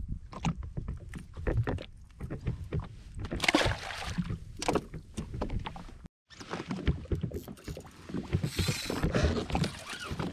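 Water slapping and lapping against the hull of a drifting jet ski, with irregular knocks and clicks from fishing rods and reel being handled. The sound drops out completely for a moment about six seconds in.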